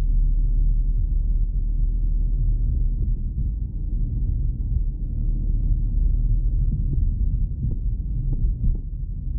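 Low, steady rumble of a car being driven, heard from inside the cabin, with a few faint ticks near the end.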